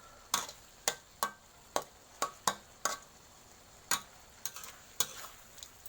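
A spatula knocking and scraping against a frying pan while the stir-fry is stirred, about ten irregular clacks with a short metallic ring, over faint sizzling.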